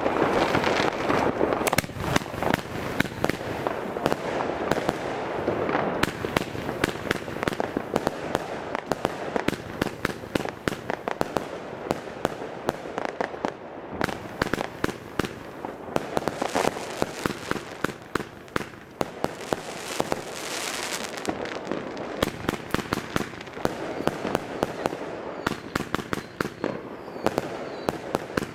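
Magnum Backfire Rudebox, a 100-shot compound firework cake, firing: launch shots and bursts in quick succession with stretches of crackling. The shots come fastest towards the end.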